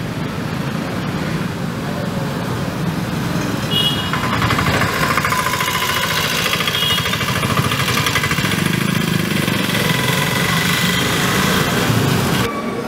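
A motor vehicle's engine running close by in street traffic. It grows louder and denser about four seconds in, with a fast even pulsing and a faint whine, and cuts off abruptly near the end.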